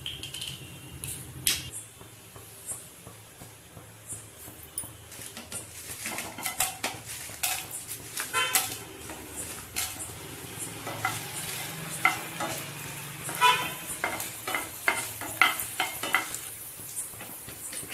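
Dried red chillies frying in hot oil in a nonstick pan, with light sizzling while a wooden spatula stirs them. From about six seconds in there are many sharp clicks and knocks, some ringing briefly, as the steel bowl and spatula touch the pan.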